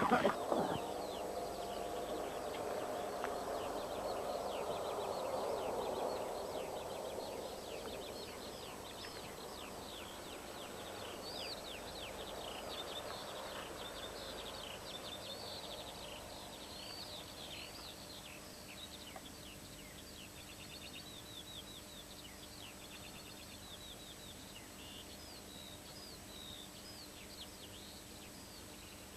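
Small birds twittering, many short, quick chirps one after another, thickest in the middle. Under them a low rumbling noise fades away over the first eight seconds or so.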